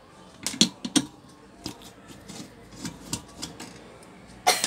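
Scattered clicks and clinks of small metal screws and a screwdriver handled against a rice cooker's plastic base while it is being unscrewed, with a louder clatter near the end.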